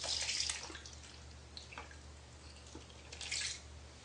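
Water splashing and dripping in a bath or sink as a cat bathes in it: a splash in the first moments, a few scattered drips, then another small splash near the end.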